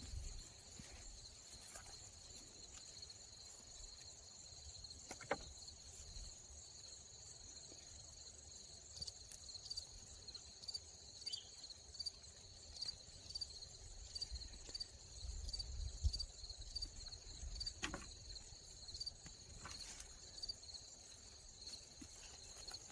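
Insects chirring steadily in the background: a high, even drone with a faint regular pulse of about two to three beats a second. A few faint knocks and scuffs come through, one about five seconds in and another near eighteen seconds.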